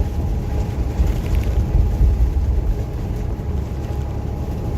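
Steady low rumble of a truck cab at highway speed on a wet road: engine and tyre noise, with a faint steady tone above it.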